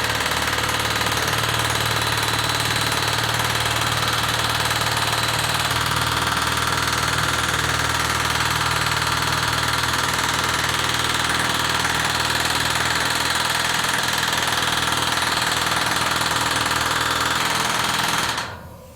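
Pneumatic rivet gun hammering rapidly and steadily on the end of a steel staybolt in a steam locomotive's firebox, peening the bolt end over so the metal spreads and seals against boiler water leaks. The hammering stops abruptly near the end.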